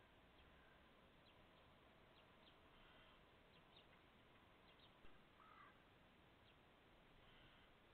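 Faint corvid calls over near silence: scattered short ticks and a brief call about five and a half seconds in.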